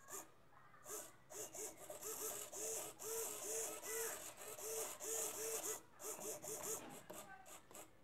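Two small hobby micro servo motors whirring in short, quick bursts, about four a second, as they swing a laser pointer's pan-and-tilt mount to follow joystick movements. Each burst is a brief gear whine; the bursts thin out near the end.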